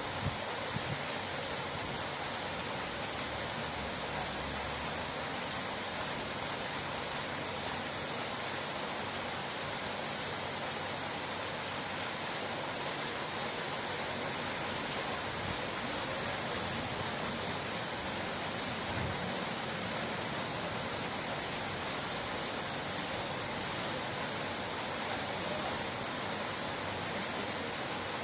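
Running water: a steady, even rushing hiss that does not change.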